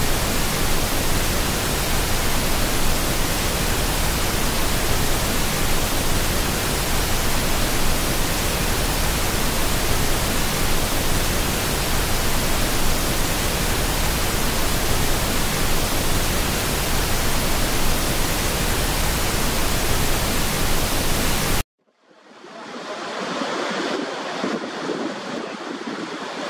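A steady, even hiss across all pitches, like white noise, that cuts off suddenly about 22 seconds in. After a moment of silence, the rush of water at the brink of Horseshoe Falls fades in.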